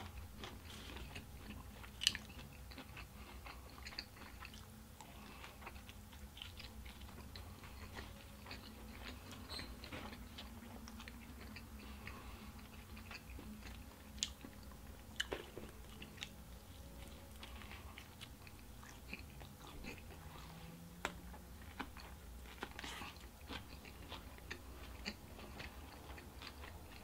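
Faint chewing and biting of a pizza slice, with scattered small crunches, the sharpest about two seconds in.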